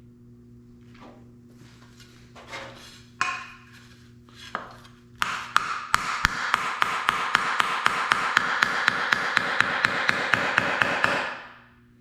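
Hammer beating a hand-made steel fender patch panel into shape. A few light taps come first, then about five seconds in a fast, steady run of blows starts, about four to five a second, with the sheet metal ringing between them. The blows stop and the ringing fades out about a second before the end.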